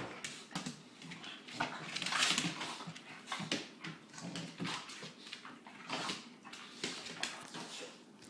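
Two dogs play-fighting on a tile floor: short, irregular scuffles and breathy dog noises, the loudest about two seconds in.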